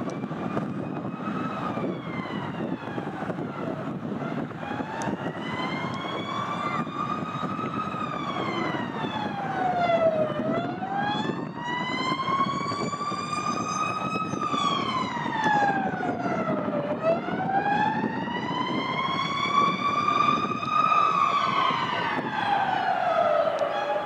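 An emergency vehicle's siren wailing: a pitched tone sweeping slowly up and down, about every six to seven seconds, cutting off suddenly near the end. Under it runs a steady low rush of airliner jet-engine noise from an Airbus A330 on final approach.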